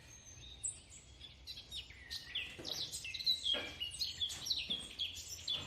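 Small birds chirping: a quick run of short, high chirps, one after another.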